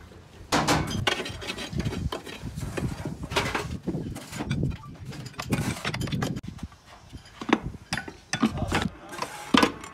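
Moulding sand being packed into a steel casting flask with metal ramming rods: an irregular run of dull knocks and scrapes, with several sharper knocks in the last few seconds.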